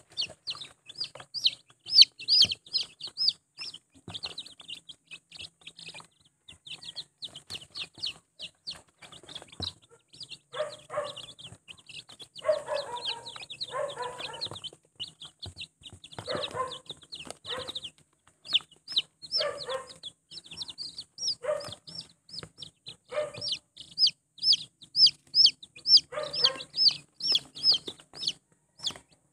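Newly hatched chicks peeping nonstop, a rapid run of short, high, falling cheeps, busiest at the start and again near the end. Several lower, shorter calls break in through the middle.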